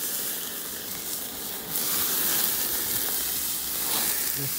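Merguez sausages sizzling on a charcoal grill with flames flaring up through the grate: a steady hiss that dips briefly about a second in and comes back up.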